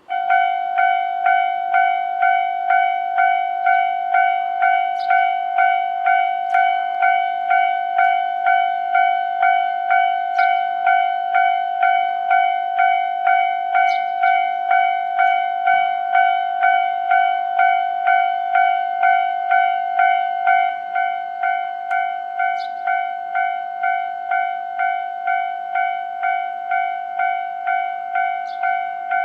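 Japanese level crossing's electronic warning bell ringing, one pitched ding repeated just under twice a second. It drops a little in loudness about 20 seconds in.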